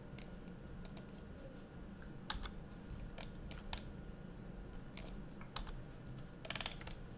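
Scattered clicks of computer keyboard keys and mouse buttons as a Blender user selects and moves mesh vertices, with a quick run of clicks near the end, over a faint steady low hum.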